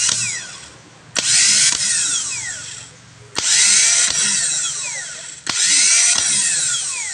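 Starter motor from a Mitsubishi 4M51 engine, freshly repaired with new carbon brushes, bench-tested on a battery: three times it whirs up suddenly and then winds down, its whine falling in pitch each time.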